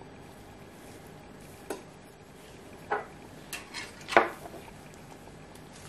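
About five light clicks and taps of small hard items being handled on a tabletop: gel polish bottles and nail tools picked up and set down. The loudest tap comes about four seconds in.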